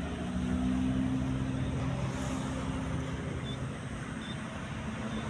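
Toll-road traffic: a steady rush of tyre noise with the low hum of a vehicle engine, strongest in the first two seconds and easing off afterwards.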